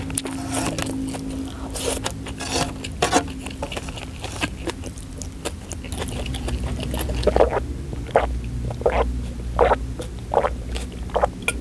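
Close-miked eating sounds: chewing with small wet mouth clicks over the first few seconds. From about seven seconds in come about seven loud gulps, roughly one every 0.7 s, as water is swallowed from a glass jar.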